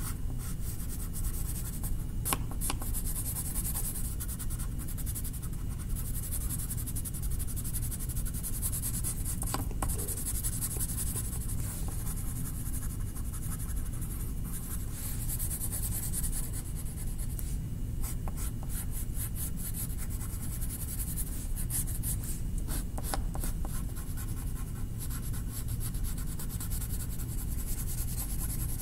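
A drawing tool scratching back and forth on paper as a picture is colored in, in stretches of strokes broken by short pauses, over a steady low hum.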